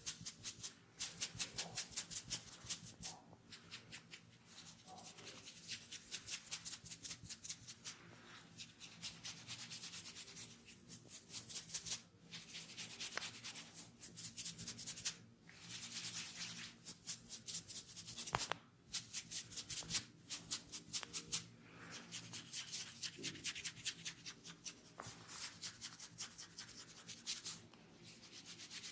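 Hands rubbing briskly through long hair and over the scalp in a head massage, a dry scratchy friction in quick strokes of about ten a second. The strokes come in runs of a few seconds with short pauses between them.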